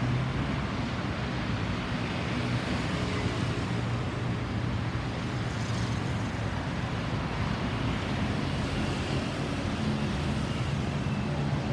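Steady road traffic noise: vehicle engines running with a low hum and tyre noise, and no siren sweeping.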